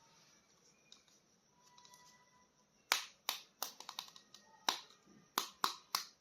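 A run of about a dozen sharp, irregular clicks and taps, starting about three seconds in, as a plastic toy figure is handled.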